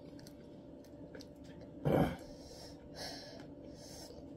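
People breathing hard through the mouth against the burn of extremely hot peanuts. There is one short, loud vocal burst about two seconds in, then two hissing breaths about a second apart.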